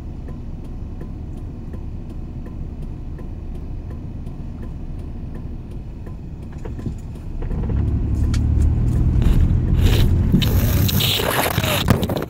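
Truck engine and road rumble heard from inside the cab, steady and low at first with a faint regular ticking, then growing louder from about seven seconds in as the truck gets moving, with a loud rushing hiss near the end.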